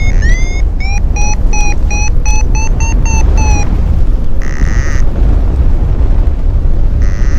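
Paragliding variometer beeping its climb tone: quick upward-chirping beeps, about four a second, creeping higher in pitch while the glider climbs in the thermal. They stop a little past halfway, and a longer steady tone sounds twice after that. Heavy wind rumble on the microphone runs under it all.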